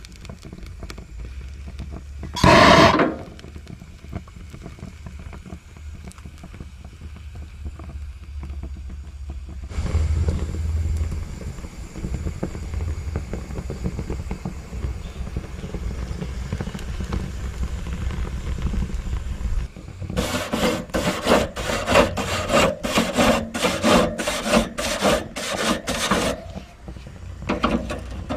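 Small propane grill burning at high flame to burn off old grease, a low steady rumble, with one short loud burst of noise about two and a half seconds in. Near the end a wire grill brush scrubs the hot grate in quick scraping strokes, about three a second.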